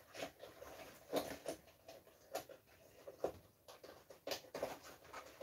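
Faint, irregular clicks and rubbing as a PMK-3 gas mask's rubber facepiece and its fittings are handled and pressed together.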